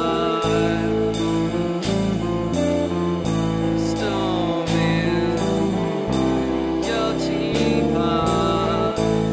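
Music: a song with singing over guitar and bass, with a steady beat.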